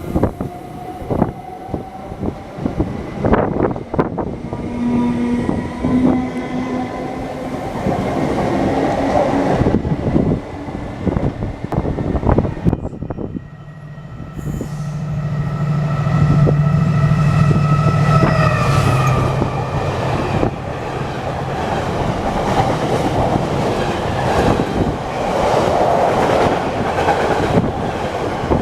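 A train running through a railway station. In the first few seconds the wheels click over rail joints. From about halfway a loud, steady low hum with a whine above it sets in and lasts several seconds, followed by continued rumbling running noise.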